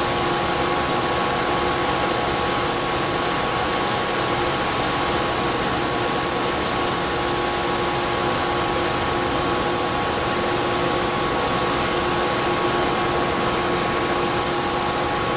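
Grain dryer's fan running with a constant, loud drone: a steady rushing hiss with a few fixed humming tones, unchanging in pitch and level.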